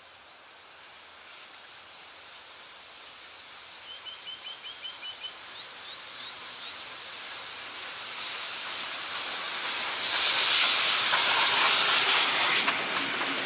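Steam locomotive approaching and passing with a steady hiss of steam that grows louder and is loudest about ten to twelve seconds in as the engine goes by, easing as the carriages roll past. A bird chirps a quick run of notes about four seconds in.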